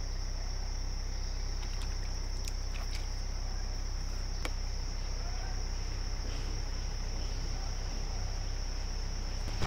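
Insects in the surrounding forest keeping up a steady, high-pitched continuous chirring over a low, steady background rumble, with a few faint clicks.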